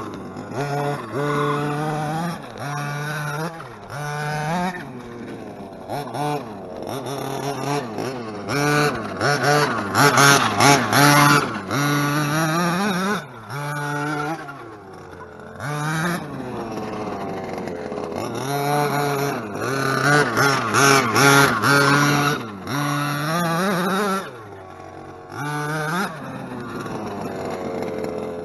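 Ported 32cc Zenoah G320 two-stroke engine of a fifth-scale RC monster truck being worked hard in repeated throttle bursts. Its pitch rises and falls with each burst and drops back in short lulls between them.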